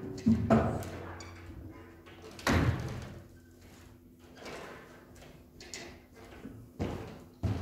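Handling knocks and thumps as an acoustic guitar is set down and people move about a wooden pulpit. There is a sharp knock near the start, a louder thump about two and a half seconds in, and two more near the end, over a faint steady hum.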